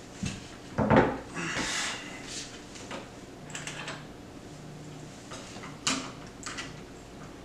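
Crossbow parts and hardware being handled during assembly: irregular knocks and clicks, the loudest about a second in, followed by a short scraping sound and then lighter clicks.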